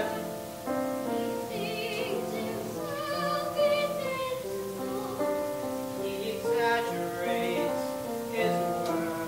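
Opera singing in short phrases with vibrato over held instrumental accompaniment.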